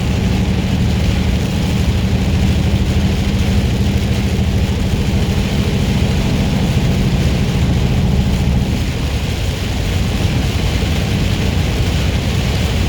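Inside a semi truck's cab at highway speed in heavy rain: the diesel engine's steady low drone over constant hiss and spray from tyres on a flooded road. The engine's hum eases off about two-thirds of the way through while the road noise carries on.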